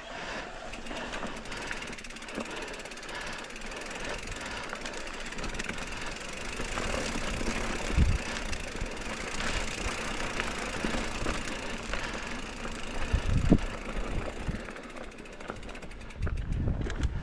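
Mountain bike ridden over a rough trail: steady tyre noise with rattling and clicking from the bike, and two heavier thumps about 8 and 13 seconds in as it hits bumps.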